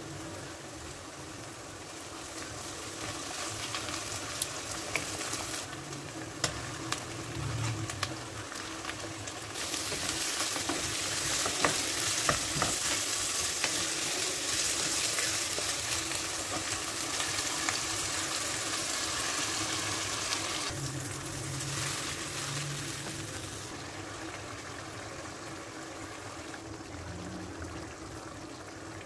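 Onions and meat sizzling in hot oil in a non-stick wok while a wooden spatula stirs them, with a few sharp knocks of the spatula against the pan. The sizzle is loudest in the middle and changes level abruptly at several points.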